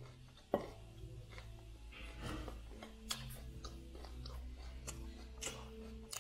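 Close-up chewing of raw broccoli: crisp, irregular crunches and mouth clicks, with one sharp crunch about half a second in.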